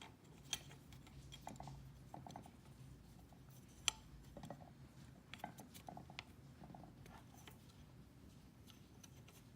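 Faint clicks and light metallic taps of small parts being handled as a return spring is worked onto an aluminum accelerator pedal's arm and pivot pin, with one sharper click about four seconds in, over a low steady hum.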